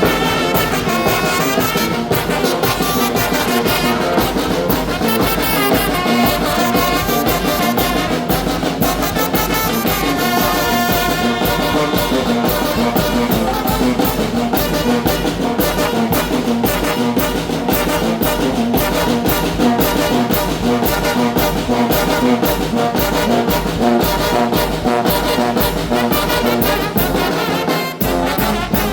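Mexican brass banda playing a huapango, with trombones and trumpets carrying the tune over a steady, driving percussion beat.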